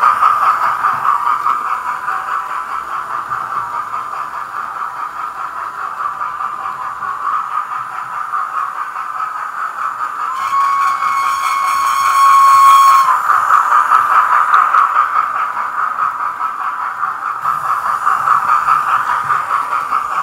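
Hornby TTS digital sound decoder in an OO gauge model of the Peppercorn A1 steam locomotive 60163 Tornado, playing rhythmic steam exhaust chuffs through the model's small speaker as it runs. A steady whistle sounds for about two and a half seconds around the middle, the loudest part.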